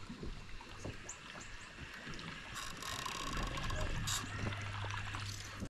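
A baitcasting reel being wound in, with light water noise around the boat and a low steady hum that grows stronger in the second half.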